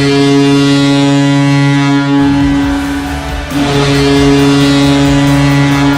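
Ice hockey arena goal horn sounding in long, steady low blasts: one blast breaks off about three and a half seconds in and a second begins at once. A low rumble joins underneath about two seconds in.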